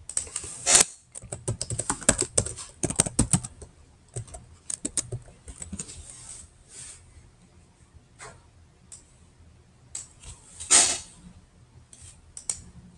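Computer keyboard typing: a quick run of keystrokes over the first few seconds as a password is entered, then scattered single clicks, with a short hiss near the end.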